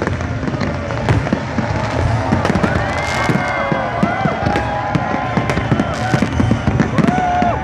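Fireworks going off in quick succession: a dense run of bangs and crackles, with tones gliding up and down over them.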